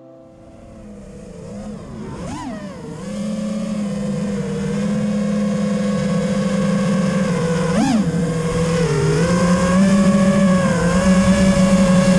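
FPV miniquad's brushless motors whining at a steady pitch, with two sharp swoops up and back down as the throttle is blipped, about two seconds in and again near eight seconds. The whine grows louder over the first few seconds.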